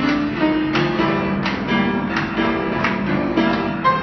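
Grand piano played live, chords struck in a steady rhythm about every three-quarters of a second over sustained low notes.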